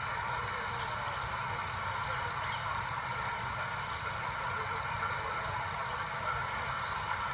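A steady hiss, even and unchanging throughout, with faint constant tones in it.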